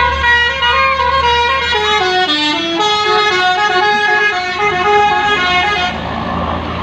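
A bus's multi-trumpet basuri 'telolet' horn playing a melody in held notes that step up and down in pitch, several horn tones sounding together. A low rumble runs under the first two seconds, and the horn cuts off about six seconds in.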